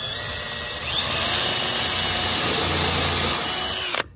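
DeWalt 20V MAX XR cordless drill running a twist bit into a pine 2x4, boring an angled pilot hole for a screw. The motor whine climbs in pitch about a second in as it speeds up, holds steady, then cuts off abruptly near the end as the trigger is released.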